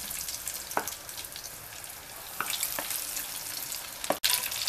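Breaded stuffed peppers deep-frying in hot soybean oil: a steady sizzle with a few sharper crackling pops. The sound breaks off for an instant near the end.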